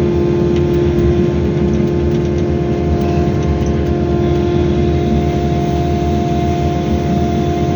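Wheel excavator's diesel engine running steadily while working, a steady whine over a low rumble.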